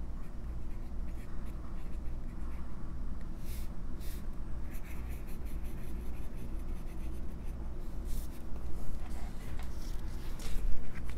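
Fine-nib Lamy Safari fountain pen writing on notebook paper: the nib scratches lightly with each stroke of the letters.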